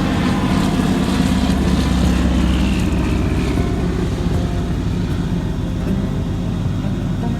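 A large engine running steadily with a low drone, and a faint falling whine about halfway through.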